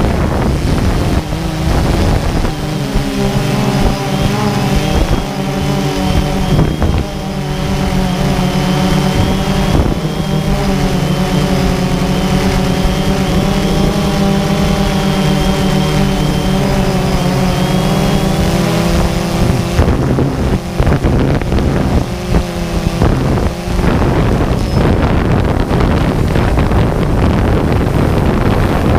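DJI Phantom 2 quadcopter's motors and propellers whirring, heard from the camera on board, with wind buffeting the microphone. A steady multi-tone hum holds for most of the first twenty seconds, then turns rough and uneven for a few seconds before settling again.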